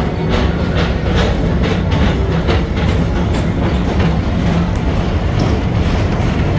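PeopleMover ride train rolling along its elevated track with a steady low rumble. Regular clicks come about two to three times a second and thin out about halfway through.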